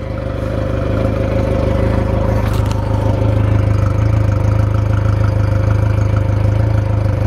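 A 115 hp fuel-injected four-stroke outboard motor idling steadily, running out of the water on the trailer with a garden hose supplying its cooling water. It grows somewhat louder over the first second, then holds an even idle.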